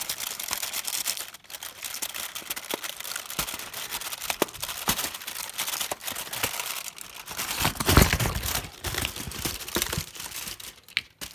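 Advent calendar door being torn open and the packaging inside handled: a steady crinkling and tearing of paper or card with many small clicks, and a louder thump about eight seconds in.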